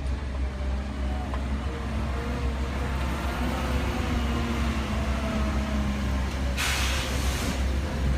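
Heavy machinery running with a steady low rumble and wavering engine tones, with one short burst of hissing air, like a pneumatic release, about six and a half seconds in.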